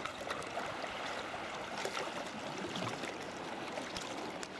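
Sea water lapping and trickling around a sea kayak, with scattered short, sharp splashes.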